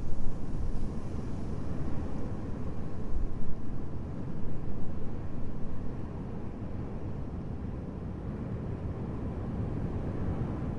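Low, rumbling winter wind noise, gusting over the first few seconds, then settling into a steady, even rush.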